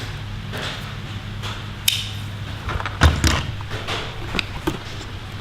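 Tools being handled and pulled from a tool bag: scattered clicks and light knocks, with one heavier thump about three seconds in, over a steady low hum.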